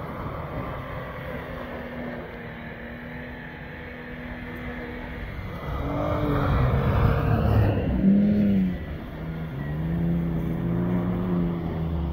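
Toyota SW4 SUV engine revving up and down as it spins and slides across snow, its pitch rising and falling twice in the second half, loudest around the middle, over the hiss of tyres churning snow.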